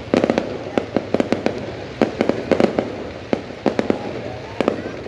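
New Year fireworks display: many sharp bangs going off in quick, irregular clusters, some close together and some spaced apart.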